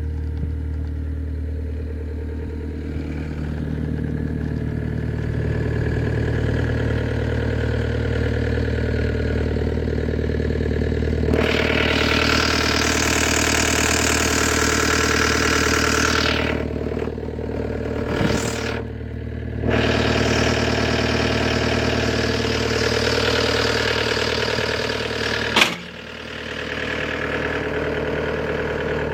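Takeuchi TL240 skid steer's diesel engine running steadily. A loud hiss joins about eleven seconds in and again around twenty seconds, each lasting several seconds, and a sharp click comes near the end, after which the sound briefly drops.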